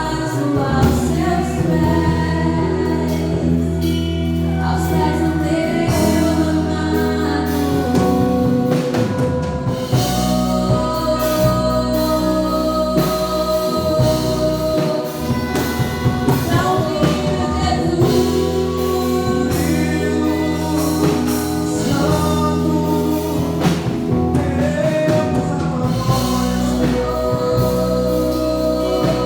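Live gospel worship music: a band with bass, keyboard and drum kit backing voices singing a praise song together.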